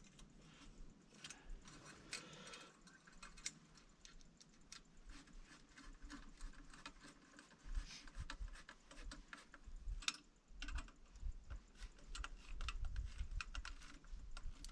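Faint, irregular small clicks and metal-on-metal handling of a clamp being fitted and worked onto a diesel heater's exhaust muffler pipe, with low rumbling in the second half.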